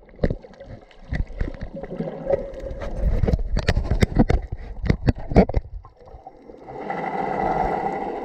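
Underwater sound picked up by an action camera in its waterproof housing: a run of sharp clicks and knocks for about six seconds, then, from about six and a half seconds in, a steady rushing noise.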